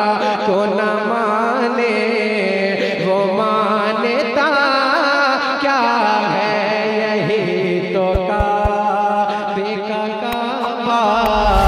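Naat recited by a male singer through a public-address system: long, drawn-out sung phrases wavering with vibrato, over a steady low hum. A few soft low thumps come about two-thirds of the way in.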